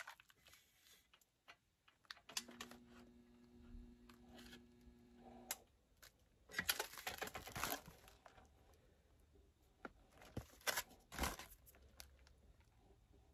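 Harvest Right impulse heat sealer sealing a foil Mylar bag: a steady electrical hum for about three seconds while the sealing element is powered, then the foil bag crinkling as it is handled, and a few sharp clacks near the end.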